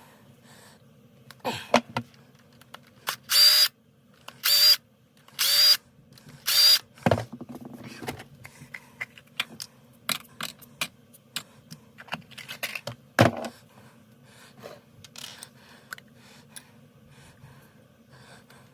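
A cordless drill/driver whirs in four short bursts, about a second apart, backing out the screws of a chainsaw. After that come scattered clicks and knocks of small metal parts and tools being handled, with a louder knock about thirteen seconds in.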